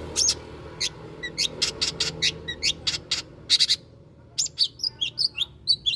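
Long-tailed shrike (cendet) singing: a rapid string of short, sharp, high notes, with a brief pause about four seconds in before quicker, varied notes resume.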